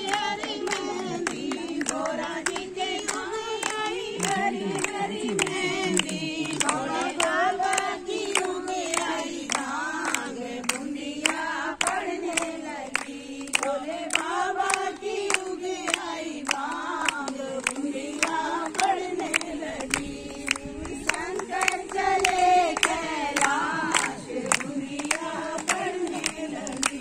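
A group of women singing a song together in unison, clapping their hands in time at about two claps a second.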